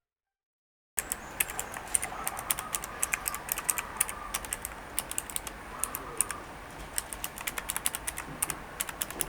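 Typing on a Keychron K3 V2 low-profile mechanical keyboard fitted with blue (clicky) switches: a fast, uneven run of sharp key clicks that starts about a second in.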